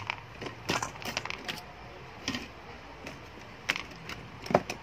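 Irregular sharp clicks and cracks of hard plastic, a handful of them, as an LCD TV's plastic casing is handled and worked at with hand tools.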